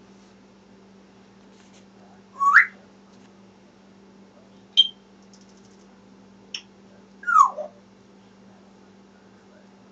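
African grey parrot whistling: a loud whistle rising in pitch a couple of seconds in, a short high chirp, a brief click, then a whistle sliding downward.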